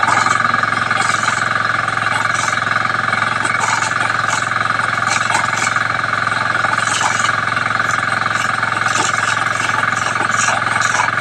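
A 9 hp self-start engine driving a 5 hp air compressor, running steadily and loudly, with scattered short ticks over it.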